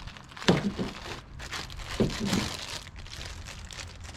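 Packaging crinkling and rustling as items are handled and taken out of a box, with a few short knocks.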